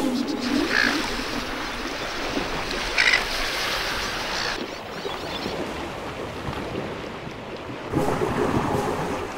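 Ocean surf washing onto a rocky, pebbly beach: a steady rushing wash that changes abruptly in loudness and brightness twice, about halfway through and near the end. A brief louder sound stands out about three seconds in.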